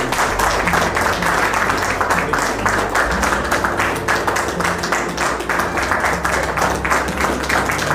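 A small group of people clapping steadily, dense and irregular.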